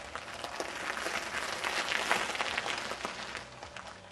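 Recumbent bicycle tyres crunching over gravel as the bike rides past close by: a dense crackle that swells to its loudest about two seconds in, then fades.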